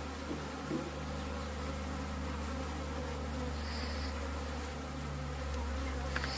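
Honeybees buzzing around an opened top-bar hive: a steady, continuous hum from many bees at once.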